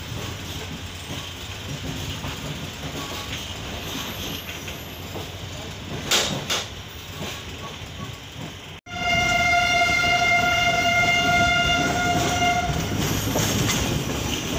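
Passenger train running, heard from inside a moving coach. About nine seconds in, a locomotive horn sounds one steady note for about four seconds while the train keeps running.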